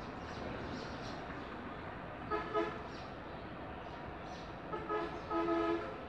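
Vehicle horn honking: one short toot about two and a half seconds in, then a longer double toot near the end, over a steady background hiss.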